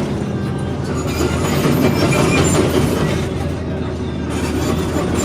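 Excavator's diesel engine running steadily while its steel tracks clank and squeak as the machine travels forward, heard from inside the cab.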